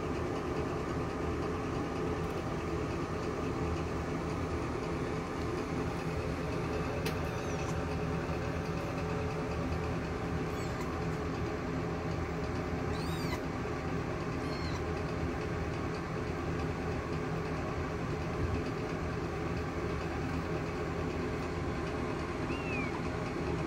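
Mother cat purring steadily as her two-week-old kittens nurse, with a few faint, short, high-pitched kitten squeaks as they jostle and scuffle at the teats.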